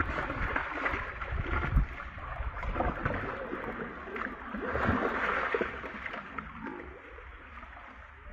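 Water splashing and gurgling, swelling about five seconds in and dying down near the end.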